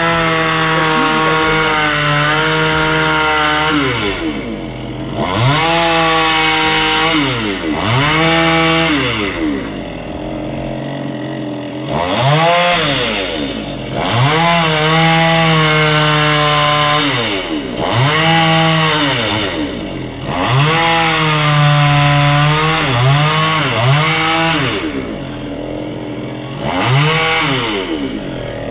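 Petrol chainsaw engine throttled up to high revs and back down again and again, every few seconds, while cutting through bush branches.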